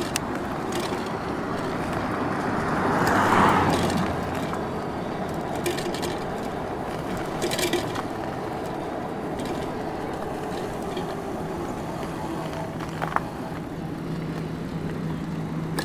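Steady road and wind noise from riding e-bikes, swelling and fading about three seconds in as a vehicle goes by.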